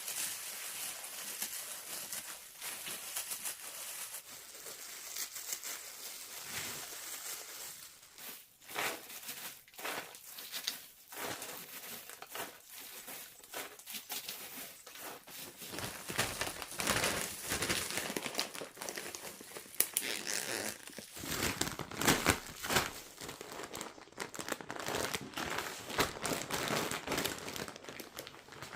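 Crinkling and rustling of something being handled, with irregular crackles that grow fuller and louder about halfway through.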